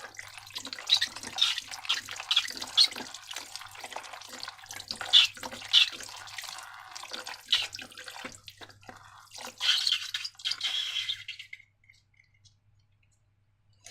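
Wet, sticky slime squelching and clicking in many irregular small smacks, stopping about two seconds before the end.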